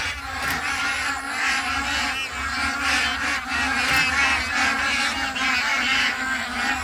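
A flock of geese honking, with many overlapping calls going on throughout.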